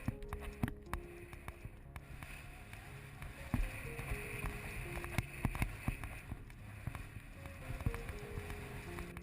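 Background music: a simple stepping melody over a steady bass, with scattered short thumps.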